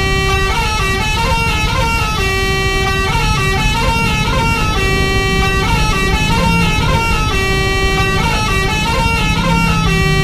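Basuri bus's telolet multi-tone horn playing a repeating melody of held, stepping notes, the phrase coming round about every two and a half seconds, over a low rumble.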